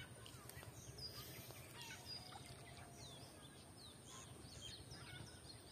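Near silence with faint chirping of small birds: many short, high calls scattered throughout.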